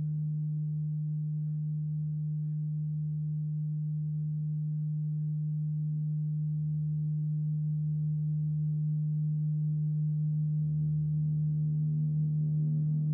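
A steady low drone held at one pitch, from a film score. Fainter higher tones swell in near the end.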